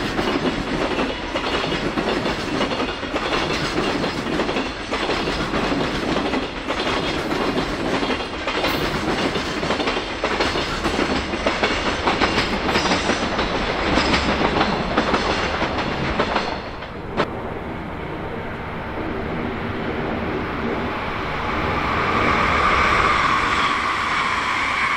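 A loaded container freight train of Koki flatcars rolls past close by, its wheels clattering over the rail joints in a dense, rapid clickety-clack. The clatter drops away about two-thirds of the way through as the last wagon clears. A steadier, rising electric-train whine with two held tones then takes over as another train approaches.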